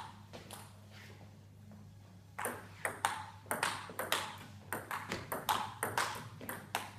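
Table tennis rally: the celluloid ball clicks off the paddles and the table top. There are a couple of hits at first, then a gap of about two seconds, then a quick, even exchange of about two to three clicks a second from about two and a half seconds in.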